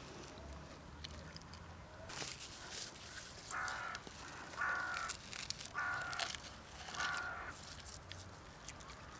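A crow cawing four times, evenly spaced about a second apart, over a scatter of sharp crackling clicks that starts about two seconds in.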